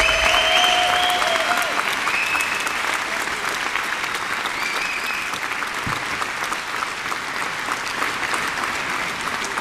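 Large hall audience applauding, many hands clapping at once, dying away slowly. A few short pitched calls ride over the clapping in the first seconds.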